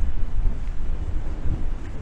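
Wind buffeting the microphone: a loud, uneven low rumble that gusts up and down.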